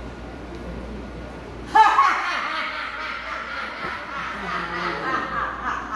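A woman's loud, theatrical laughter, breaking out suddenly about two seconds in and going on in a string of rising and falling peaks: an actor's manic laugh as the madman.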